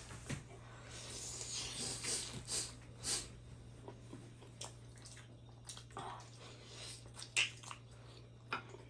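Close-miked eating of chicken momos: wet chewing with scattered mouth clicks and smacks, and a longer breathy, hissing stretch between about one and three seconds in.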